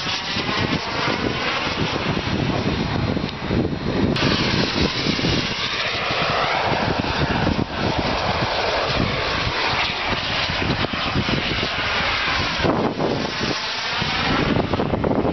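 Turbine engine of a radio-controlled model jet running loud in flight: a steady jet rush with a sweeping, phasing whoosh that swells and fades as the plane passes.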